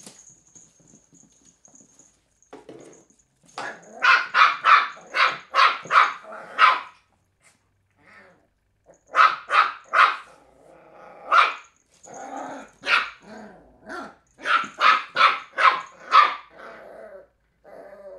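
Three-month-old cairn terrier puppy barking at an empty plastic bottle: three runs of short, rapid barks, several barks to a run.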